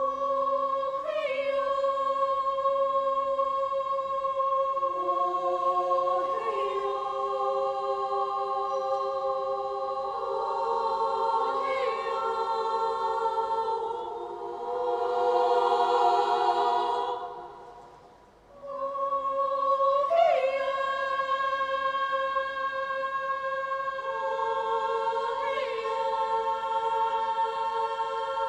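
Women's choir singing unaccompanied in sustained, held chords. About halfway through the sound swells, then fades to a brief pause before the singing resumes.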